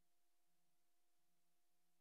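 Near silence: the footage has no soundtrack, only a faint steady electrical hum and hiss.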